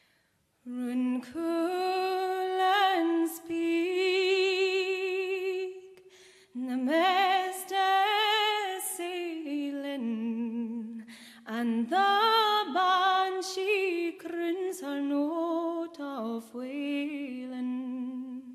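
A solo female voice singing a slow Scottish traditional lament, with vibrato on long held notes. She comes in about a second in after near silence and breaks briefly for breath between phrases.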